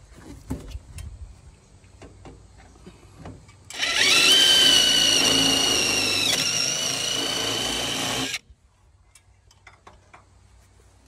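A DeWalt cordless drill spins up about four seconds in and runs steadily for about four and a half seconds, drilling a rivet hole through the copper downspout elbow joint. It dips slightly in pitch partway through, then stops abruptly. Light handling clicks and knocks come before it.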